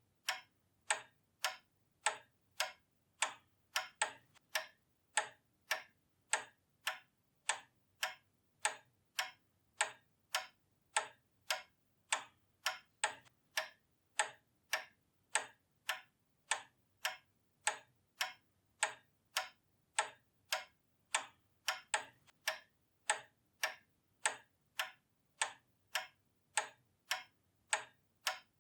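Pendulum clock ticking steadily, about two ticks a second.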